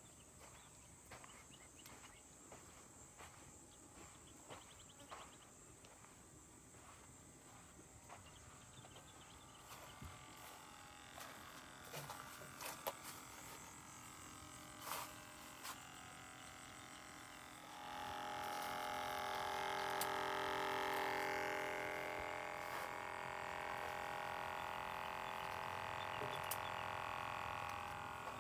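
Insects buzzing steadily, with scattered faint clicks. About two-thirds of the way in, a louder steady drone of several tones joins in and runs to the end.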